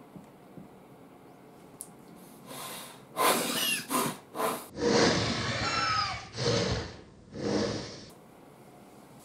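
A man who cannot voice after tongue cancer, breathing through a neck tube, forcing out a run of about six harsh, breathy, cough-like bursts with squeaky whistling glides in them, over about five seconds, then stopping.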